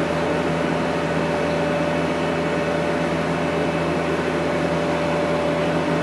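Steady mechanical hum of running machinery, with a constant whine held over it and no change in speed.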